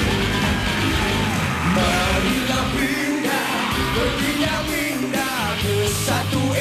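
Live pop-rock band playing, with a male singer's voice singing and calling out over the music.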